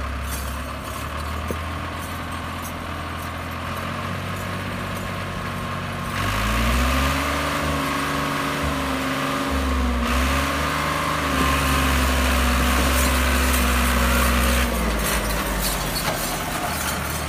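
Fiat 480 tractor's diesel engine running steadily. About six seconds in it revs up and holds higher revs under the load of a stone-laden trailer, then drops back near the end.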